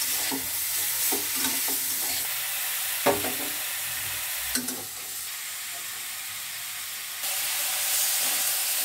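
Green cauliflower florets sizzling as they fry in oil in a metal kadai, with a spatula stirring them against the pan; a sharp knock about three seconds in. The sizzle drops a little in the middle and grows louder again near the end.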